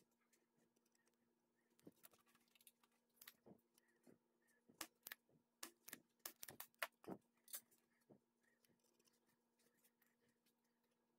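Faint, sharp clicks and ticks of desoldering tools worked against a circuit board while clearing a solder-filled hole, coming in a run from about two to eight seconds in, over a faint steady hum.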